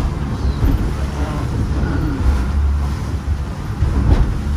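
Motorboat under way: a steady low engine drone with wind buffeting the microphone, and one sharp knock about four seconds in.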